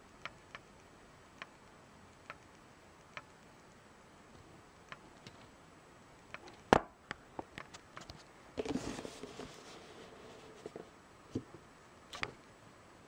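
Handling noise of a boxed camera package being turned and shown: scattered small clicks and taps, one sharp knock about seven seconds in, then a second or so of rustling, and a few more clicks near the end.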